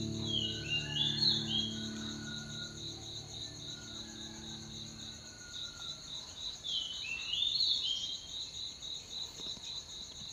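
An insect chirping in a steady, fast, even pulse, with a bird giving a short call of stepped falling notes twice: near the start and about two-thirds of the way through. Soft background music fades out in the first half.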